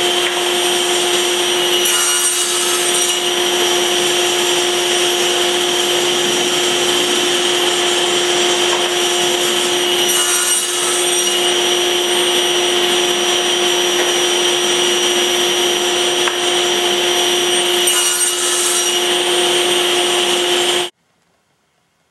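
Table saw running with a steady whine, making three short cuts through wood about eight seconds apart. The sound cuts off abruptly near the end.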